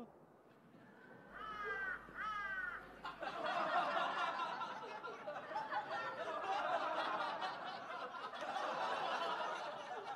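Two short pitched calls, then a group of people laughing together for several seconds; the laughter dies away near the end.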